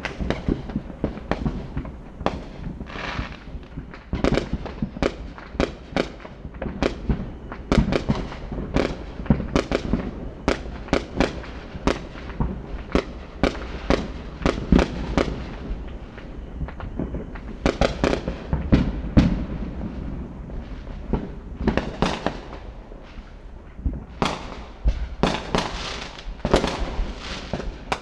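Fireworks exploding in a long irregular barrage: many sharp bangs and crackles, some in quick clusters of several a second, each with a rumbling echo.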